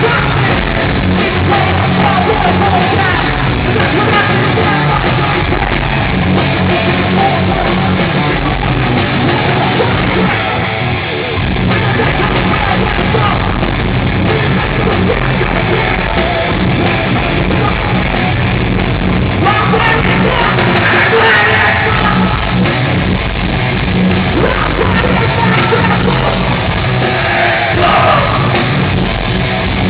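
A heavy rock band playing live and loud, with yelled vocals over guitars and drums.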